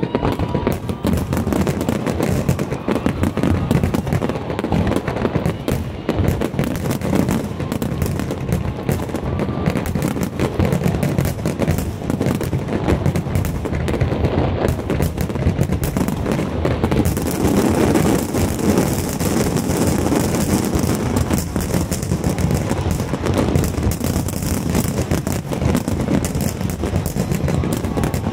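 Dense, continuous barrage of fireworks explosions, bangs following one another too fast to count. About two thirds of the way through, a steady high hiss joins the bangs.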